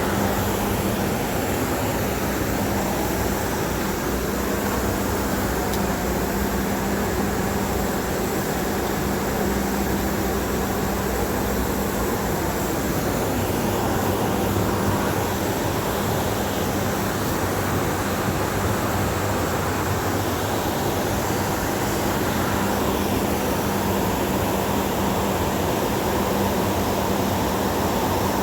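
Steady industrial machinery noise at a blast furnace plant: a constant rushing noise with a steady low hum underneath, unchanging throughout.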